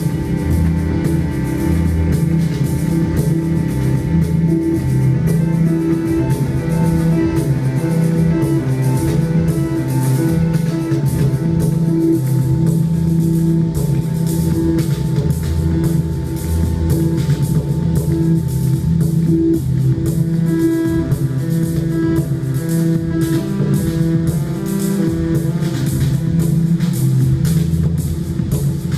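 Live instrumental music from a duo: a steady repeating pulse over sustained bass and mid-range tones that shift slowly in pitch.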